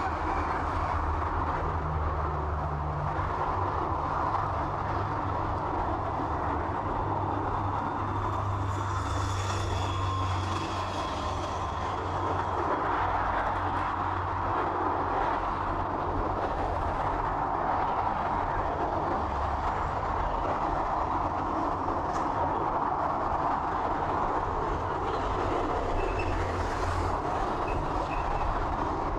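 Train running along the track: a steady low rumble and rolling noise, with a faint high whine about eight seconds in.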